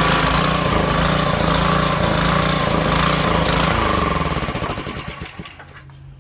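Small-engine pressure washer running with its spray hissing in bursts, then shut off about four and a half seconds in, its pulses slowing as it coasts to a stop. The pump is drawing its water by suction from a 5-gallon bucket.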